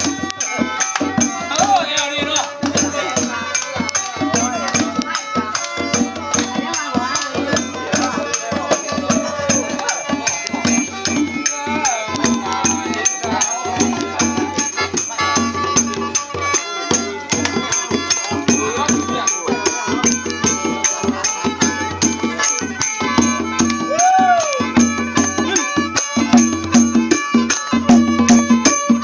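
Lao village rain-dance music: a hand drum beaten with the palms in a fast, steady beat, with hand clapping and a group of voices singing and calling along.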